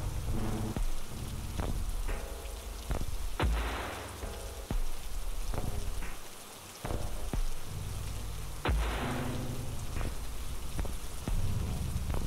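Background soundtrack of steady rain-like hiss with low thunder-like rumbles and a few sustained musical tones.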